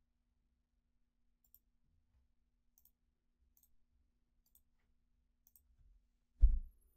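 A handful of faint computer mouse clicks, spaced a second or so apart, then a brief low thump near the end.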